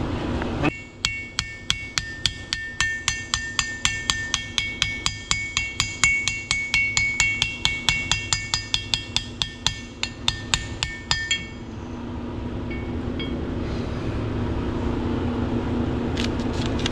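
Rapid, evenly paced hammer blows on metal, about four a second for some ten seconds, each with a bright metallic ring, then stopping. The hammering is driving a new PTO seal home in a John Deere 4455 tractor's housing.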